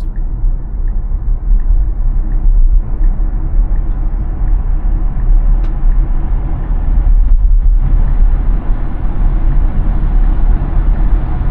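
Road and tyre rumble heard inside the cabin of a Tesla electric car cruising at highway speed, a steady low noise with no engine note. A faint regular ticking sounds during the first couple of seconds, and the road noise grows a little stronger about eight seconds in.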